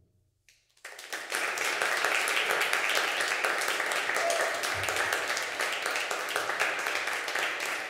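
Audience applauding, with the clapping starting suddenly about a second in after a moment of near silence and holding steady.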